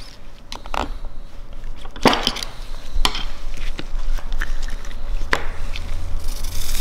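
A few scattered sharp clicks and knocks of hand work at a workbench, as engine parts and tools are handled, with a short hiss near the end.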